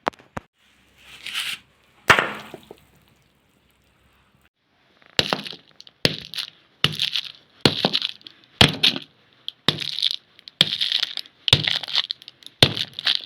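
Hammer blows crushing something brittle and crunchy, each strike followed by crackling and breaking. After a short pause, the blows come steadily about once a second.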